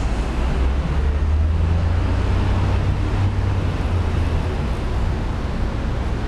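Steady low rumble of street traffic, with wind buffeting the microphone. The rumble swells from about one to four seconds in, as if a vehicle passes close by.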